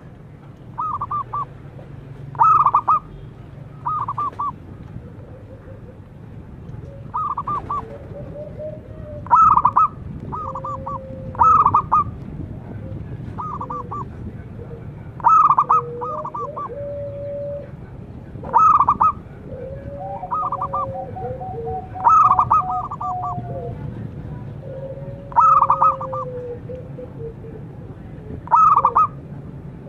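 Zebra dove calling: short bursts of three or four quick staccato cooing notes, repeated every one to three seconds, with fainter drawn-out sliding notes in between.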